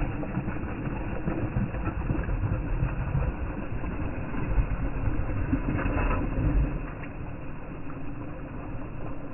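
A thrown cast net landing on the water, splashing as its weighted rim hits the surface about four to five seconds in, under a steady low rumble.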